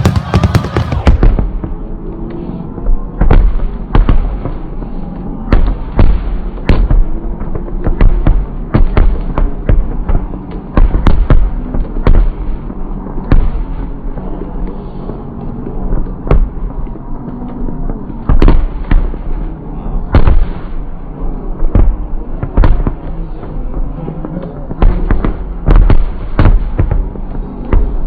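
Fireworks display: aerial shells bursting one after another, a sharp bang every second or so over a steady low rumble.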